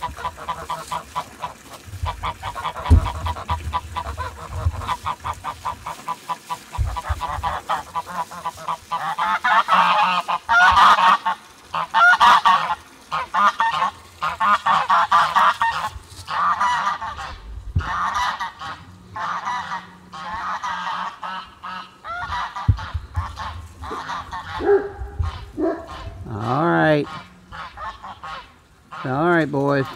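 Sebastopol geese honking, calls coming thick and fast through the first half and more spaced out after, with a couple of longer wavering calls near the end.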